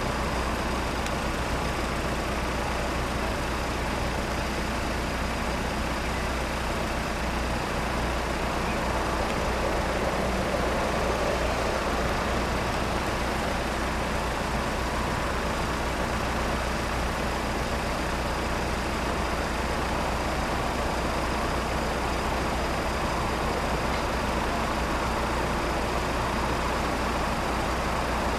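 Steady rumble of idling road vehicles queued at a closed level crossing, with no train passing.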